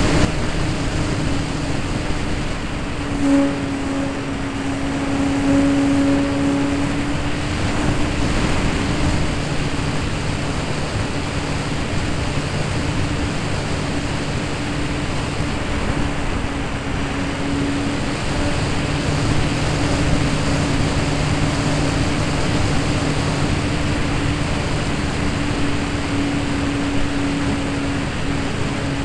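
ParkZone Mustang RC park flyer's brushless electric motor and propeller humming steadily in flight, heard from on board the model under a heavy rush of airflow over the microphone. The hum swells a little a few seconds in.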